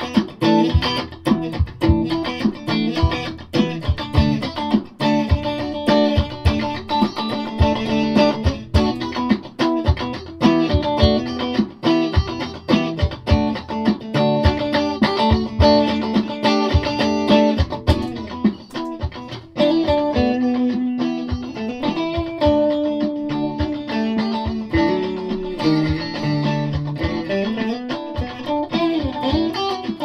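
Electric guitar played through an Orange TH-30 valve amp into a 3x12 cabinet with a reverb pedal: a busy run of quickly picked notes and chords, turning to longer held notes with some string bends after about twenty seconds.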